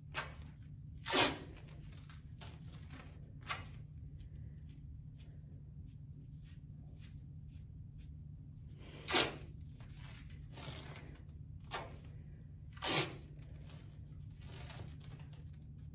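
Elastic adhesive tape (Elastoplast) peeled off the roll in short ripping pulls as it is wrapped around the lower leg, several times, the loudest about a second in, near nine seconds and near thirteen seconds.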